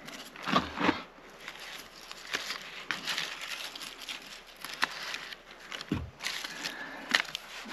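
Irregular crinkling and crackling of dry twigs and kindling being handled, with a few sharp snaps.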